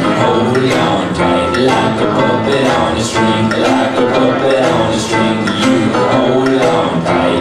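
Recorded music with a steady beat, played through a PA loudspeaker.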